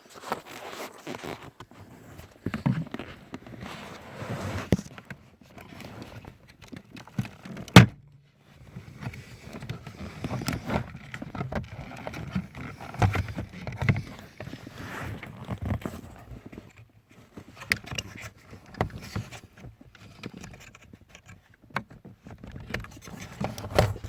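Handling noises: irregular knocks, clicks and rustles, with one sharp click about eight seconds in that is the loudest.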